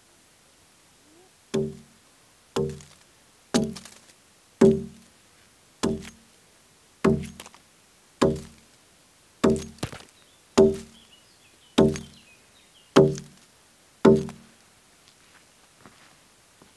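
Heavy Basque axe chopping into a felled log, twelve steady blows a little over a second apart, each with a short low ring. The blows score V-notches along the top of the log, the first step in hewing it into a square beam.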